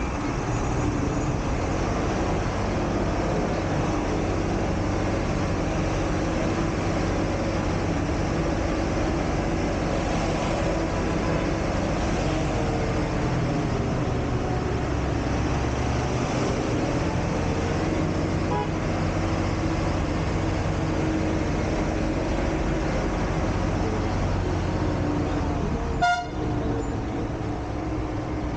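A bus engine running steadily as the bus drives along, with road and traffic noise heard through the open window. There is a short, loud sharp sound near the end.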